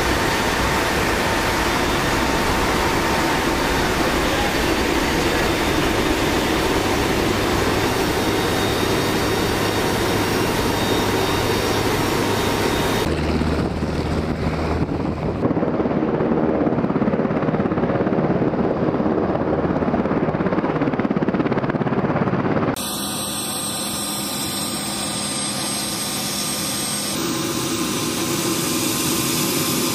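Loud steady drone of the HC-130J's turboprop engines together with rushing air inside its cargo hold, rear ramp open. About halfway through it cuts to HH-60W Jolly Green II helicopters running on the ground with rotors turning. The sound changes abruptly again a few seconds before the end, becoming quieter and steadier.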